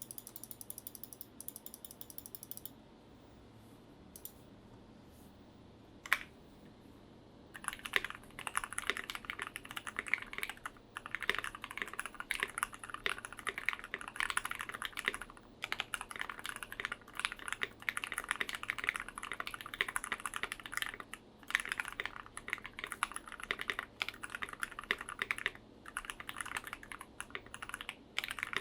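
Typing on a Tofu65 mechanical keyboard with a brass plate, lubed and filmed Gateron Ink Black V2 linear switches and PBT keycaps, giving a muted, thocky sound. A brief patter of light high clicks comes at the start, then a few quiet seconds and one lone keystroke. Continuous typing sets in about eight seconds in and carries on with short pauses.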